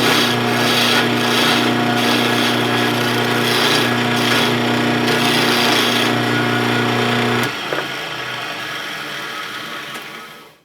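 Electric wood lathe running with a hand tool scraping and cutting a spinning wooden chisel handle, over a steady motor hum. About seven and a half seconds in the hum stops and the scraping fades, then cuts off suddenly.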